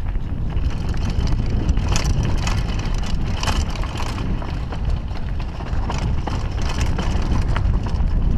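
Wind rushing over a helmet-mounted action camera's microphone during a fast downhill mountain-bike descent, a steady low rumble. Over it, tyres clatter on loose stones and the Kona Coiler downhill bike rattles in quick sharp knocks, thickest about two seconds in and again around three and a half to four seconds.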